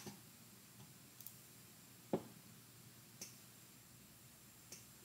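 Near silence with a handful of faint, scattered clicks, the clearest about two seconds in.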